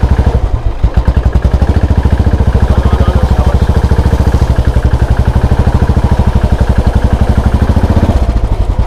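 Royal Enfield single-cylinder motorcycle engine running with a steady rapid thud of exhaust pulses as the bike moves slowly. The revs pick up about a second in and ease off near the end.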